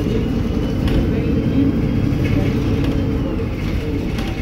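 Mercedes-Benz O-500U city bus under way, heard from inside the cabin: a steady low diesel drone with a few short rattles and a faint high whine that slowly rises.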